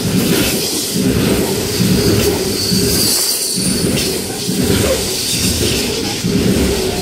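Coal hopper wagons of a freight train rolling past at close range: a steady rumble and clatter of steel wheels on the rails, with a brief high squeal about three seconds in.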